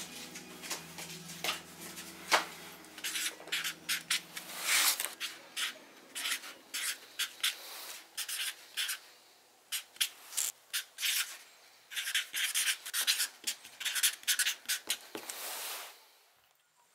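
Felt-tip marker writing on cardboard: a run of short, scratchy strokes, with a couple of sharp taps in the first few seconds. A low steady hum underneath stops about five seconds in.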